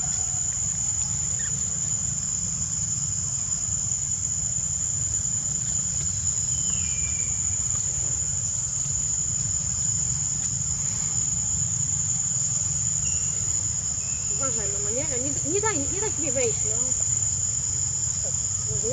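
A forest insect chorus droning steadily at a single high pitch, over a steady low rumble.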